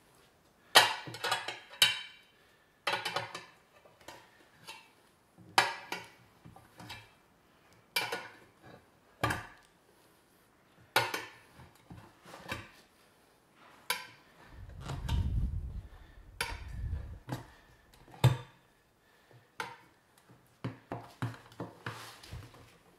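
Hand tools clanking and scraping against a wheel rim while a tire is levered on by hand: irregular sharp metal knocks every second or two, with a few seconds of low rumble about midway.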